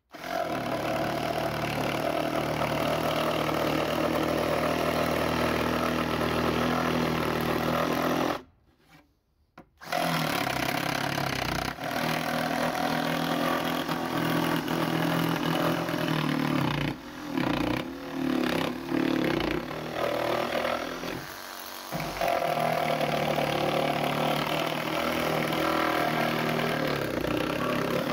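Small battery-powered reciprocating saw, newly converted to run on an 18-volt Makita battery, cutting through a wooden board on its first test: the motor runs steadily with the blade rasping in the wood. It stops for about a second around a third of the way in, then runs again, its speed and load wavering for a few seconds in the second half.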